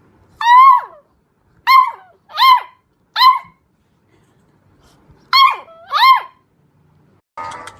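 A dog giving six short, high-pitched yelps: four in the first three and a half seconds, then a pause, then two more close together.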